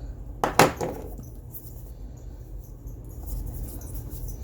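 Packaging of a watch box being handled: two quick sharp scrapes or cracks about half a second in, then faint rustling and small clicks.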